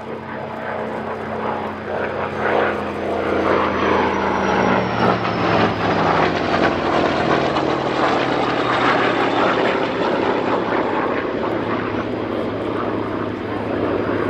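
A MiG-15 turbojet fighter and a Hawker Sea Fury propeller fighter flying past together in formation. Their engine noise swells quickly at first and stays loud, and a high whine and the lower engine tones sink gradually in pitch as they pass.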